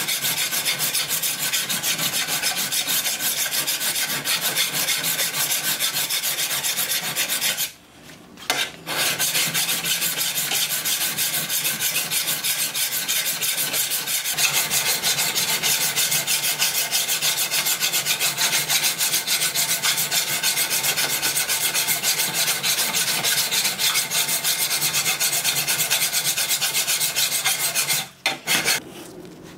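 Hand file draw-filing a 5160 leaf-spring steel sword blade: rapid, repeated rasping strokes of file teeth on steel, stopping briefly about eight seconds in and again near the end.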